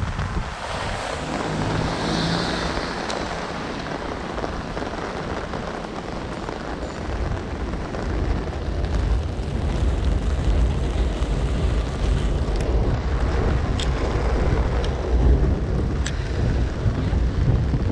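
Heavy nor'easter wind gusts buffeting the microphone over the steady hiss of heavy rain; the low rumble of the wind grows heavier about halfway through, with a few light ticks near the end.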